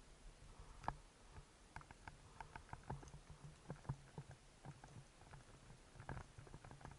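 Faint underwater ambience picked up by a camera in a waterproof housing: scattered irregular clicks and crackles over low dull thumps, with a couple of sharper clicks standing out.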